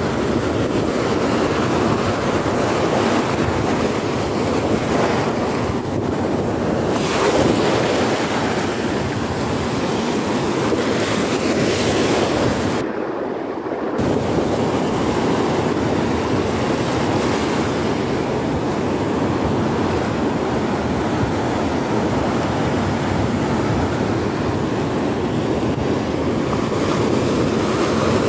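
Ocean surf breaking and washing up the beach in a steady wash, with wind buffeting the microphone. The surge swells now and then and briefly thins out about halfway through.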